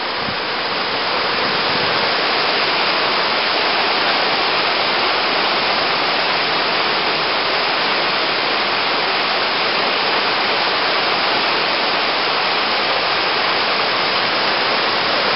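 Steady rushing of a creek in flood, its muddy water running high and fast.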